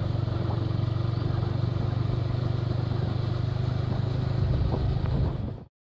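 Motorcycle engine running steadily while riding. The sound cuts out abruptly near the end.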